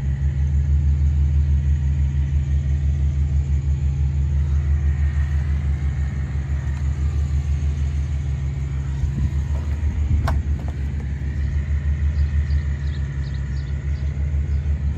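A steady low rumble with a fast, even pulse, and a single sharp click about ten seconds in.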